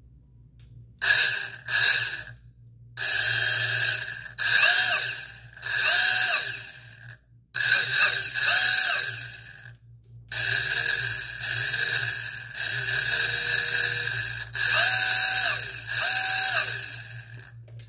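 Spektrum Firma 6000Kv brushless motor with built-in ESC spinning the Mini-B's pinion and spur gear under throttle blips, giving a high whine in about a dozen bursts that rise in pitch, hold, and fall away, some brief and some a second or two long. It is a bench test run of the freshly installed motor, and it runs properly.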